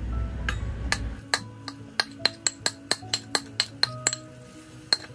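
Steel spoon clinking repeatedly against a plate, about three sharp clinks a second, as mashed tapioca is scraped and tapped off it into a pot. A low rumble comes before the clinking starts, about a second in. Quiet background music plays underneath.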